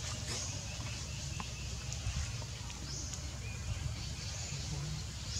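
Outdoor forest ambience: a steady low rumble with a high hiss that swells about half a second in and again near three seconds, and a few faint clicks.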